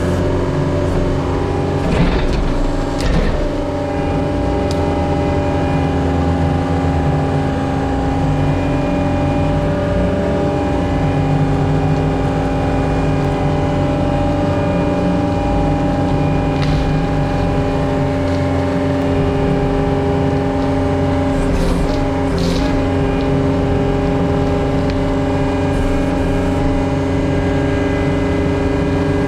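Diesel engine of a John Deere 333G compact track loader running steadily under load while it clears debris with a grapple, with a few knocks around two to three seconds in and again about twenty-two seconds in.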